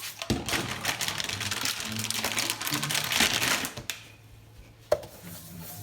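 Rustling, handling noise for about three and a half seconds, then it dies down and a single sharp click sounds near the end.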